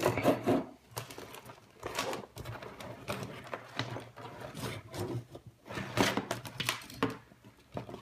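Loose wires and plastic connectors of a car wiring harness being handled on a workbench: irregular rustling with light clicks and taps.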